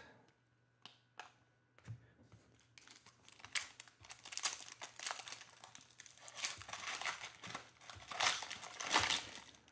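The foil wrapper of a Panini Mosaic basketball hobby pack being torn open and crinkled by hand. A few faint clicks come in the first two seconds, then several seconds of crackling foil with louder tearing bursts.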